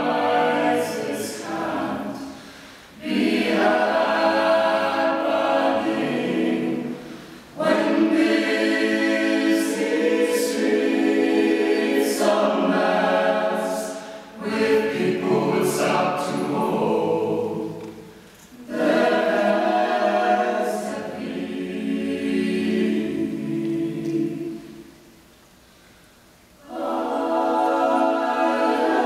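Mixed-voice a cappella group singing in close harmony, phrase by phrase with brief breaks between. Near the end the voices drop to a hush for about a second and a half before coming back in together.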